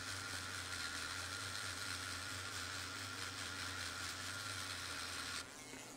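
MaAnt D1 handheld grinding pen running steadily while grinding away old spot welds on the battery's tab, then stopping about five and a half seconds in.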